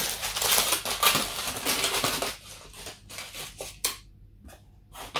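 Aluminium foil being unwrapped and crinkled by hand: dense crackling for about two seconds, then sparser crackles with one sharper crack near four seconds in.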